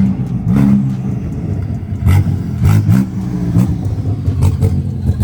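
BMW M car's twin-turbo inline-six revved several times on an open dump with no exhaust fitted, very loud, the pitch climbing and dropping with each blip. A few sharp cracks come between the revs about two to three seconds in.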